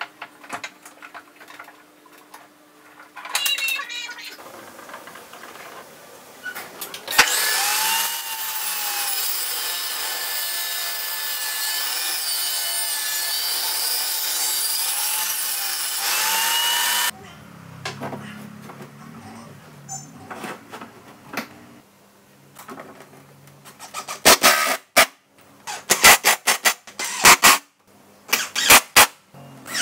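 A benchtop table saw (Stanley STST 1825) winds up about seven seconds in, rips a wooden board lengthwise for about ten seconds, then spins down. Near the end comes a run of loud, sharp knocks in irregular groups.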